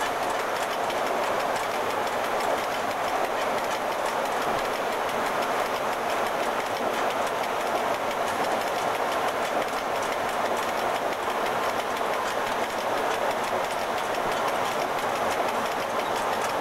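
FS E.656 electric locomotive running at speed, heard from its cab: a steady rush of wheels on rail with faint clicks from the rail joints.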